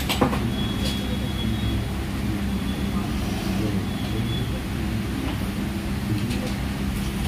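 A steady low hum with a light click just after the start, and faint voices in the background.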